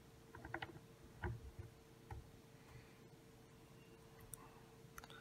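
Near silence: a few faint small clicks and taps from hands working the fly at the tying vise, mostly in the first two seconds, over a faint steady hum.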